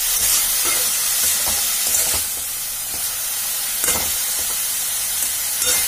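Grated radish, peas and tomato sizzling in oil in a kadai while a flat metal spatula stirs and scrapes through them, with a few sharper scrapes of the spatula against the pan, the clearest about four seconds in.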